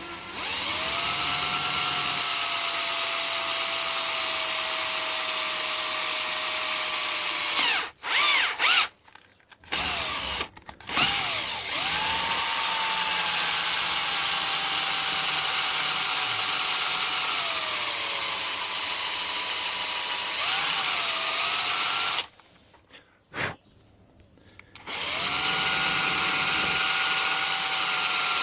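Electric drill boring into a lock cylinder with a blunt bit. It runs in three long stretches, with stops and a few short spurts about 8 seconds in and a pause of about three seconds near the 22-second mark. Its pitch sags now and then as the bit loads up.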